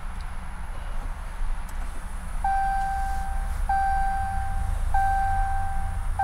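2013 Ram 1500 dashboard chime sounding as the ignition is switched back on: a steady electronic tone held about a second and repeated four times, about one and a quarter seconds apart, starting a couple of seconds in, over a low steady rumble.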